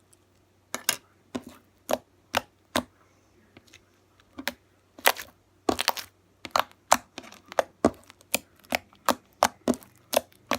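Homemade slime being kneaded and squeezed in the hands, giving a run of sharp wet clicks and pops at irregular intervals, with a denser flurry about five seconds in.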